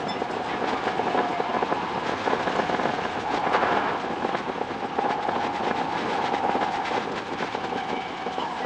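A Tokyo Metro 10000 series electric train running, its sound sped up about six times, so the wheel and rail-joint clicks run together into a dense crackle over a steady whine.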